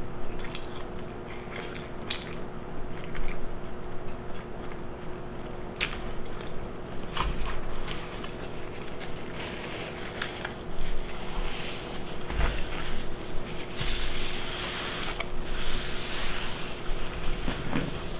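A person biting and chewing a Big Mac close to the microphone, with wet mouth sounds and small crunches. Near the end comes a louder stretch of hissing noise lasting a few seconds.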